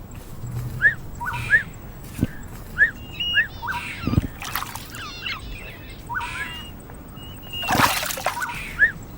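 An animal giving short, high chirping calls, often in pairs, repeated every second or so. Near the end there is a brief burst of noise like a splash.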